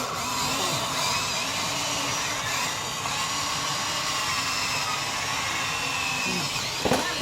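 Small electric motors and gears of a remote-control toy excavator whining steadily as it works. A sharp knock comes near the end.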